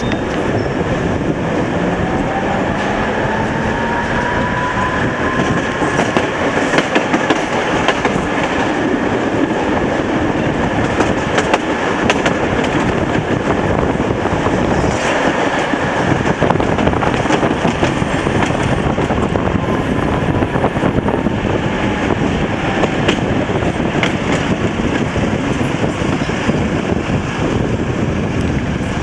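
Tatra T3 tram running along its line: a steady rumble and rattle of the car, with wheels clicking now and then over rail joints. A whine rises in pitch over the first several seconds as it picks up speed and falls again in the second half as it slows.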